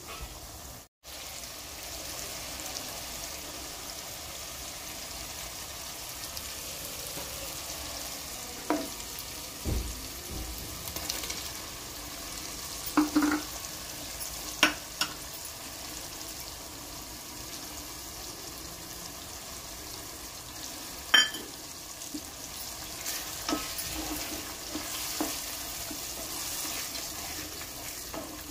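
Chicken frying in hot oil in a pan, sizzling steadily, with several sharp knocks of a stirring utensil against the pan. The sound cuts out briefly about a second in.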